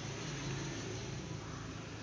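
Steady background hiss with a faint low hum and no distinct events.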